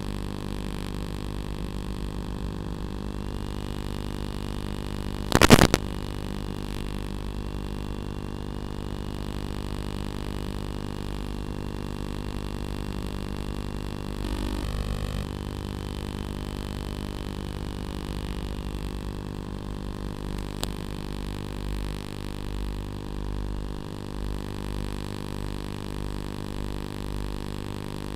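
A steady hum made of many fixed, even tones. A short, loud burst of crackle comes about five and a half seconds in, and a brief rougher patch follows near the middle.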